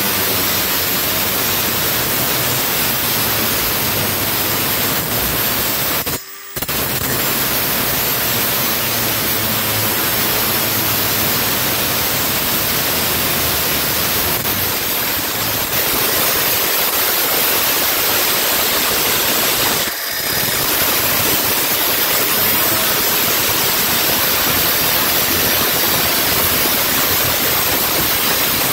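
Milwaukee M18 FUEL 2980-20 cordless angle grinder cutting into a rusty metal post with a worn metal cutoff disc: a loud, steady grinding hiss. It cuts out for a moment about six seconds in, and dips briefly near twenty seconds.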